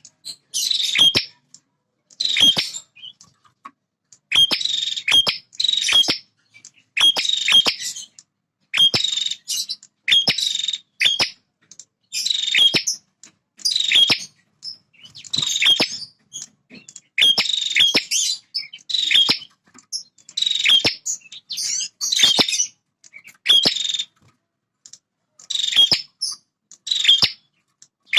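Male prenjak (a prinia) singing over and over: short, high-pitched chattering phrases, about one a second, each with brief gaps between. This is the bird's territorial song, used to provoke rival birds into singing.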